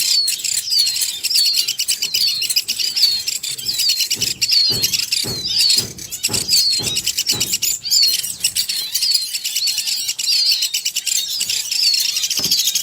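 Baby woodpecker calling without a break: a fast, high buzzing with short high notes repeating about two or three times a second. A run of soft low thumps, about two a second, comes in around the middle.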